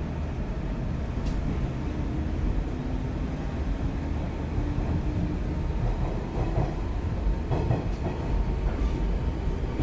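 Hanshin 8000 series electric train running on the line: a steady low rumble with faint humming tones, and a few light clicks from the track in the second half.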